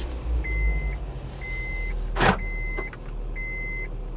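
A just-started 2001 Acura Integra GSR four-cylinder engine idling steadily at about 1,000 rpm, running normally after having its engine bay washed. Over it, a car's warning chime beeps about once a second, five times, and there is one loud thump a little past two seconds in.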